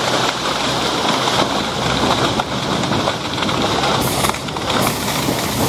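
Water rushing and splashing at the bow of a dive boat under way, with the boat's engine running steadily underneath.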